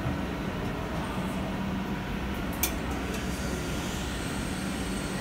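Steady low machinery hum of a factory hall, with a held low tone under a rumble, and a single sharp metallic click about two and a half seconds in.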